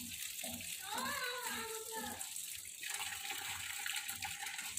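Tap water running steadily into a large metal tub as saag greens are washed in it by hand.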